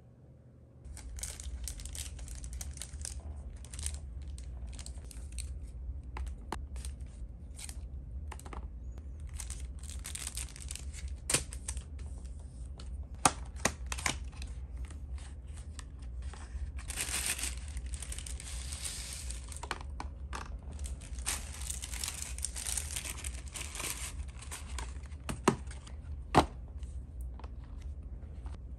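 Hands working on keyboard parts: irregular rustling and crinkling, like material being peeled or crumpled, with a few sharp clicks, over a low steady hum that starts about a second in.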